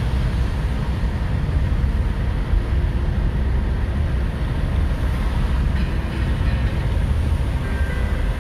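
Steady road noise inside a moving car: a low rumble from engine and road, with tyres hissing on the wet road surface.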